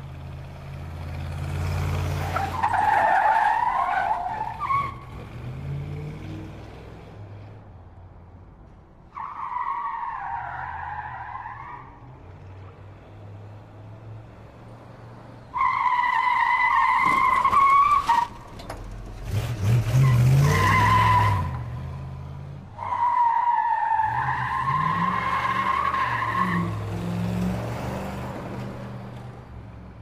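Muscle car engine running and revving while its tyres skid, with about five separate long tyre squeals, some cutting off abruptly.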